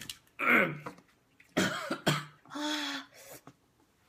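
A person coughing in several short bursts and clearing the throat, with a brief voiced sound between them: coughing brought on by the burn of very spicy cheese buldak noodles.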